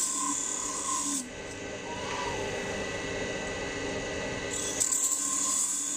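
Small wood lathe running steadily while a cutting tool shaves the spinning wooden blank down to bead size; the cutting noise is strongest during the first second and again from about four and a half seconds on.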